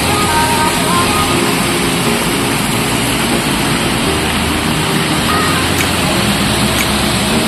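Waterfall, its falling water making a steady, loud rush.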